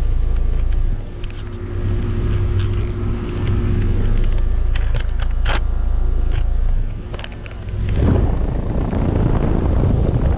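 2016 five-ton Trane XB13 heat pump outdoor unit running in cool mode: the steady low hum of its Alliance scroll compressor under the rush of the condenser fan, with a few light ticks. The rush turns rougher about eight seconds in.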